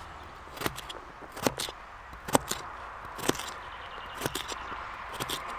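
Knife cutting a raw potato into small pieces by hand: about six sharp clicks, roughly one a second, as the blade cuts through.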